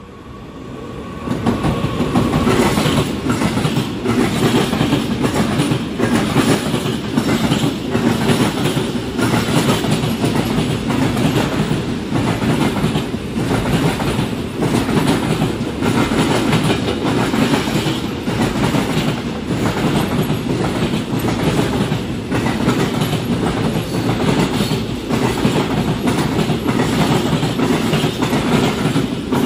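Container freight train hauled by a Captrain E494 electric locomotive passing through the station. The sound swells over the first couple of seconds as the locomotive comes by, then holds as a steady rolling rumble of freight wagon wheels with repeated clickety-clack over the rail joints.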